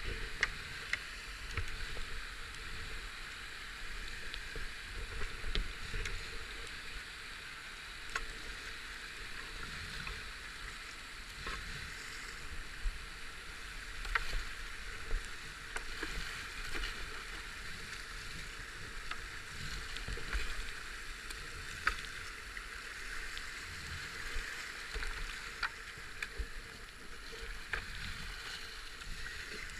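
Whitewater rushing and hissing around a racing kayak running a rocky rapid, with paddle strokes splashing and scattered sharp knocks and clicks.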